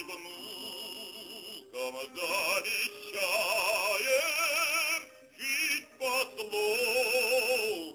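A song: a singer holds long notes with wide vibrato over accompaniment, with brief breaks between phrases.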